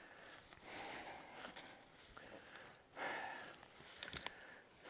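A person breathing heavily while walking, two long breathy exhales. A couple of sharp clicks come a little after four seconds in.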